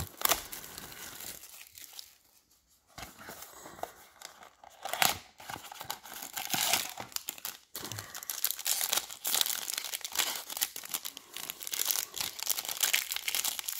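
Silver foil wrapper of a Topps Museum Collection card pack being crinkled and torn open by hand, a dense continuous crackle through the second half, after a sharp click about five seconds in.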